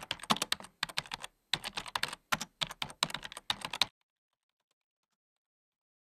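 Keyboard typing sound effect: rapid key clicks in several quick runs, stopping abruptly about four seconds in, keeping time with text being typed out on screen.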